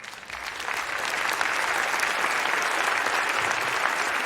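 Large audience applauding, a dense clapping that swells over the first second and then holds steady.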